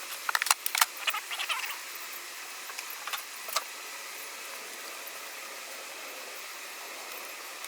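Honeybee swarm buzzing steadily around the open hive, with sharp knocks of wooden hive boxes and frames in the first second and a half and twice more around three seconds in.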